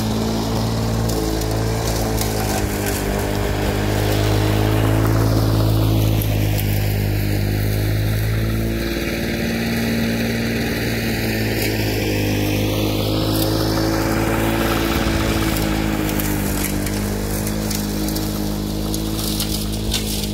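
Victa Commodore 160cc two-stroke full-crank engine running steadily under load while the mower cuts thick, long grass. Its note dips about halfway through and then holds.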